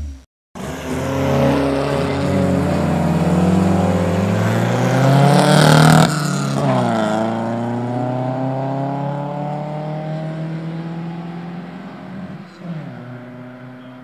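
A car passing by: the engine note climbs as it approaches, swoops down in pitch as it goes past about six seconds in, then fades away.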